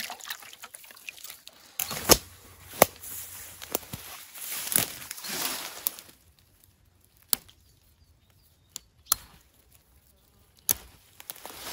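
A handful of sharp knocks at irregular spacing, the loudest about two seconds in, over a rustling noise that stops about halfway through. The rest is quiet between the knocks.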